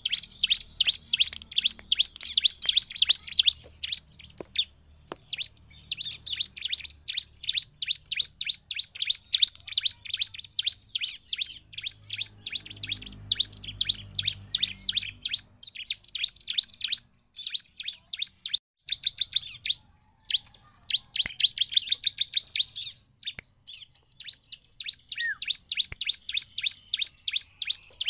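Bar-winged prinia (ciblek) singing hard: long runs of rapid, sharp, high chirps, many a second, broken by a few short pauses.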